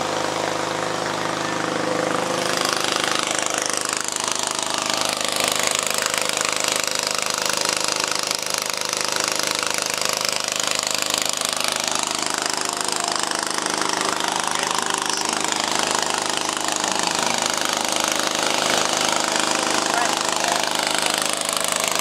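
An engine running steadily at a constant speed, with a loud even hiss over it that strengthens about two seconds in.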